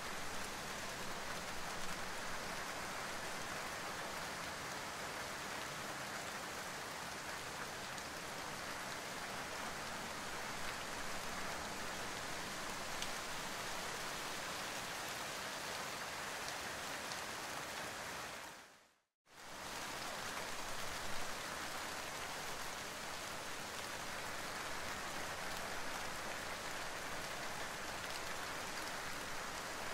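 Steady rain falling, an even hiss. About two-thirds of the way through, it fades out for a moment and then comes straight back.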